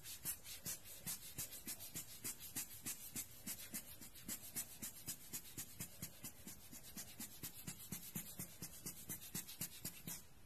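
Giottos Rocket rubber bulb air blower squeezed over and over in a rapid, even run of air puffs, several a second, stopping near the end.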